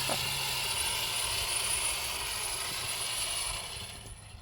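Electric RC truck's dual motors and transmission running: a steady gear whirr with a thin high whine, fading out near the end. The gear noise comes from the three big pinion gears of the dual motor mount.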